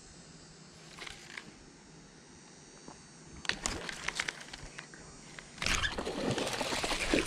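Clicks of a baitcasting reel being handled, then about five and a half seconds in a loud splashing as a bass strikes the worm at the surface near the bank.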